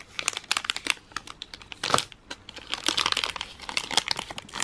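Foil wrapper of a chocolate-covered marzipan bar crinkling as it is opened and peeled back: a quick, irregular run of sharp crackles, with one louder crackle about two seconds in.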